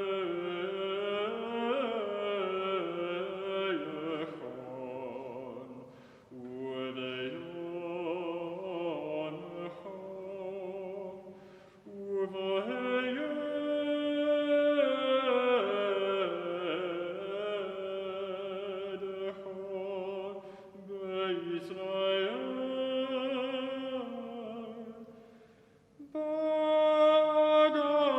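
Sacred vocal music: voices singing with vibrato in long held phrases, broken by short pauses about 6, 12 and 26 seconds in.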